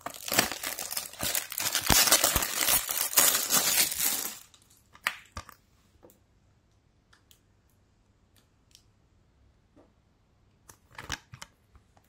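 Plastic shrink wrap being torn and peeled off a Blu-ray case, a dense crinkling for about four seconds. After that come a few light clicks and taps of the plastic case being handled, with a short cluster of clicks near the end.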